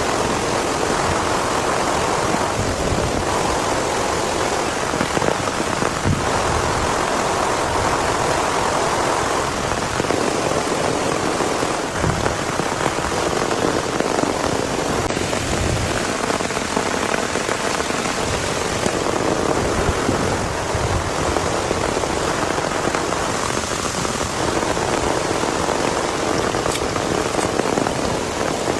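Steady rain falling and pattering on surfaces, with brief low rumbles now and then.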